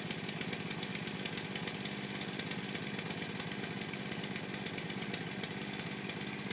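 A small engine running steadily at an even speed, with a fast regular ticking.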